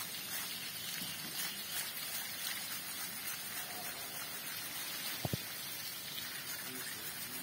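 Steady hiss of water running over wet ground while a hand scrubber works over the hair of an Asian elephant's tail, with a single low knock about five seconds in.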